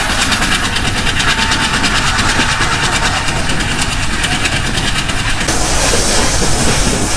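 Passenger train running along the track, heard from on board: a steady rumble and rush of wheels on rails with a fast rhythm of clicks. About five seconds in, the hiss turns brighter and a little louder.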